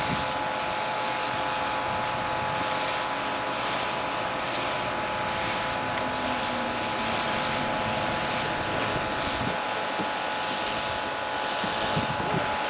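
A vehicle engine running steadily, with a constant whine over a hissing rush.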